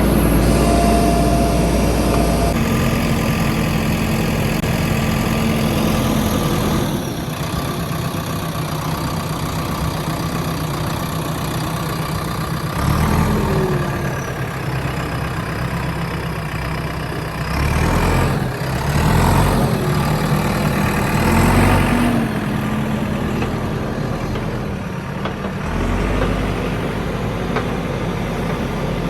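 JCB 3DX backhoe loader's diesel engine running steadily, its revs rising briefly several times as the machine works.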